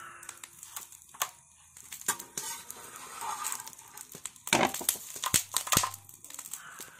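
Steel spatula scraping and knocking on a hot iron tawa as banana-leaf fish parcels are turned, the charred leaves crinkling. There is a sharp click about a second in, and a cluster of louder scrapes and knocks about halfway through.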